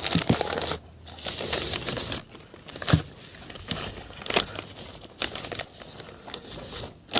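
Packaging being crinkled and torn open, with scattered light clicks, as a new fuel injector is unwrapped.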